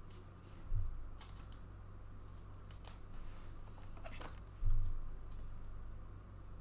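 Trading cards being handled: a few faint rustles and clicks as cards slide between fingers, with one louder soft bump about four and a half seconds in, over a steady low room hum.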